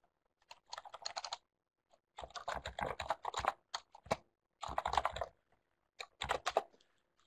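Typing on a computer keyboard: about five quick runs of keystrokes with short pauses between them, picked up by an open webinar microphone.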